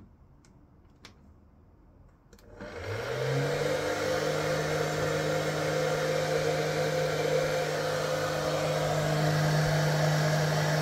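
A 2200 W hair dryer switched on: a few faint clicks, then about two and a half seconds in its motor spins up with a rising hum and settles into a steady blowing rush.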